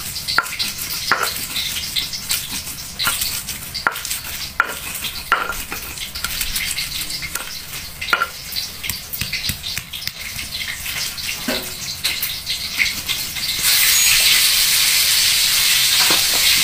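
Stone pestle crushing and grinding shallots, garlic, chilies and tomato in a stone mortar: irregular knocks of stone on stone with gritty scraping between them. Near the end a louder steady hiss comes in.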